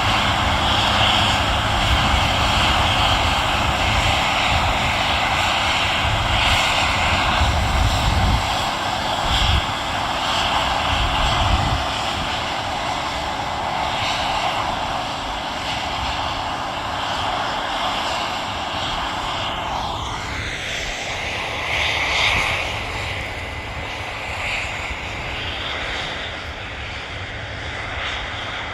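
Heavy farm machinery running steadily. There is a deep rumble through roughly the first twelve seconds, and the sound shifts about twenty seconds in.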